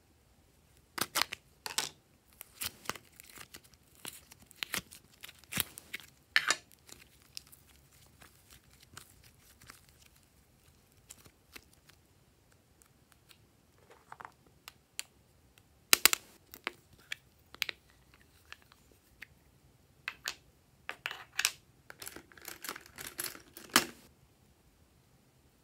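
Small plastic makeup containers handled and opened close to the microphone: irregular sharp clicks, taps and short bursts of crinkling, in clusters with pauses between.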